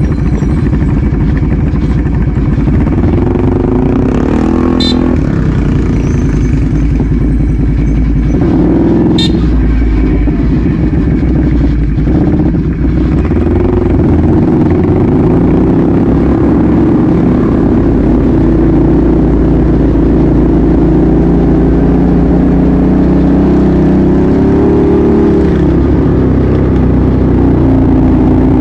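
ATV engine running under way, its speed rising and falling as the throttle is worked, with two brief sharp clicks about five and nine seconds in.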